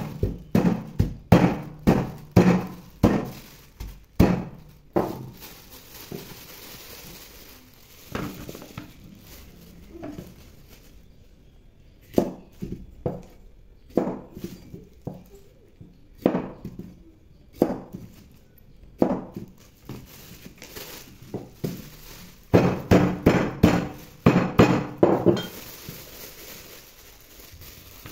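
Cleaver striking a thick wooden chopping board in bursts of sharp knocks with pauses between, cutting the stems off small round green eggplants.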